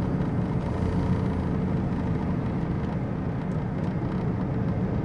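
Steady engine and road noise inside a moving van's cabin: an even low rumble with a faint steady hum above it.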